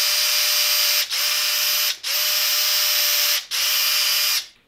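Power drill motor running steadily with a fixed whine as it bores pilot holes through oak rungs. It cuts out briefly three times, about one, two and three and a half seconds in, and stops shortly before the end.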